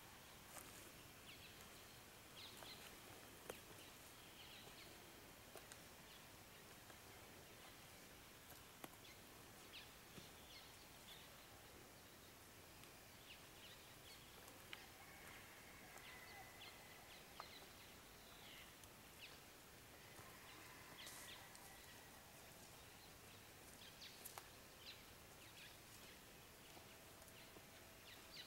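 Near silence: faint outdoor ambience with scattered small clicks and a few faint bird calls.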